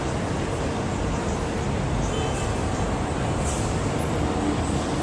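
Busy city street traffic: a steady din of passing vehicles and engines, with faint higher hisses and tones mixed in.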